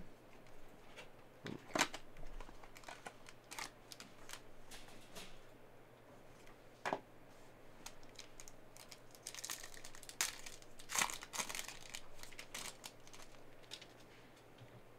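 A Panini Prizm Choice basketball card box being opened by hand and its wrapped pack torn open: faint crinkling and tearing with scattered clicks and taps from handling cardboard and cards, busiest about nine to twelve seconds in.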